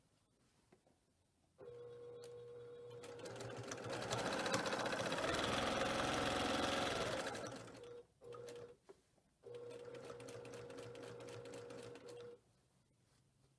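Brother PQ1500SL straight-stitch sewing machine stitching during free-motion quilting. It starts about a second and a half in, speeds up to its fastest and loudest in the middle, stops and gives one short burst, then runs steadily again until it stops about a second before the end.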